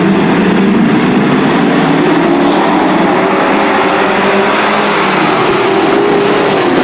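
A pack of dirt-track race trucks running hard together, many engines at high revs overlapping, their pitch drifting up and down as they go through the turn.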